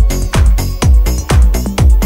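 Background electronic dance music with a steady beat, about two kicks a second.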